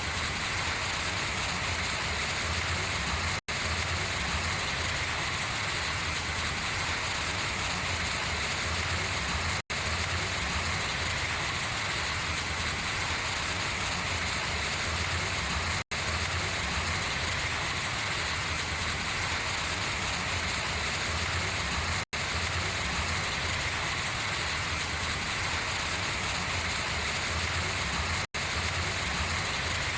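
Steady rain pattering on and running off large leaves, an even hiss without pause, broken about every six seconds by a split-second dropout.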